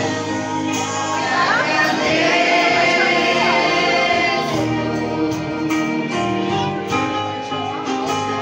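A group of children and young people singing a hymn together, with instrumental accompaniment.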